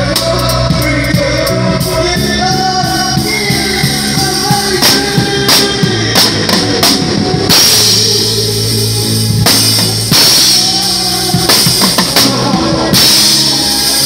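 Live gospel band playing: a drum kit with crashing cymbals, growing denser from about halfway, over steady low notes and keyboard.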